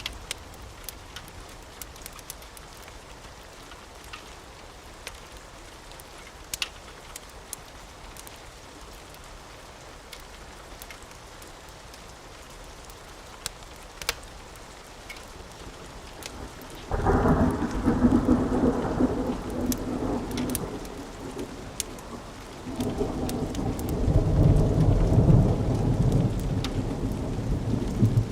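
Steady rain with scattered sharp crackles, then thunder: a sudden loud rumble rolls in about seventeen seconds in and fades, and a second, deeper roll builds a few seconds later and carries on.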